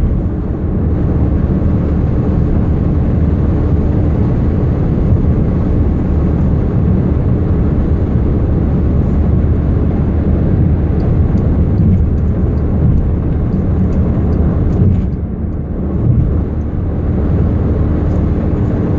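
Volkswagen Jetta TDI turbodiesel on the road: a steady, loud low rumble with a constant whine running through it, the wobbling rumble and whistling noise the owner is trying to trace to a fault.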